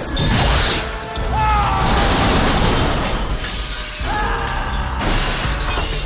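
Window glass shattering and shards raining down in several loud waves, with a dramatic film score underneath.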